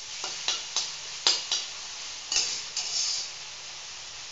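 Tomato masala sizzling in hot oil in a metal kadhai while it is sautéed, a metal spatula stirring and scraping against the pan in a run of short strokes through the first three seconds, loudest about a second in. The sizzle then carries on steadily on its own.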